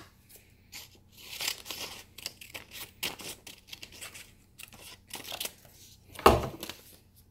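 Scissors cutting a printed sheet of paper: a run of short, crisp snips and paper rustling, with one louder bump about six seconds in.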